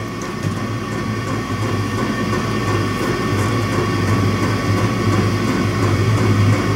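Electric soldering gun buzzing steadily with a low hum while its tip heats a cable terminal for soldering.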